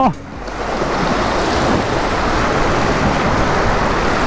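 Sea waves breaking and washing over shore rocks, a steady surf. It dips briefly just after the start, then returns to an even wash.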